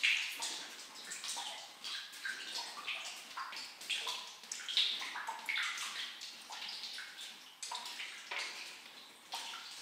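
Water dripping from limestone stalactites: many drops landing at uneven intervals, each a short plink at a different pitch.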